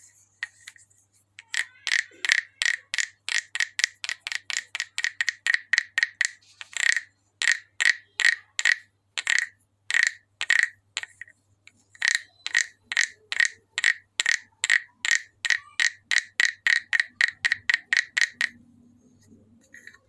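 Green wooden frog guiro croaking as its stick is run over the ridged back: a long series of short, rasping croaks, about three a second, slowing to single croaks midway and pausing briefly before a fast run to the end.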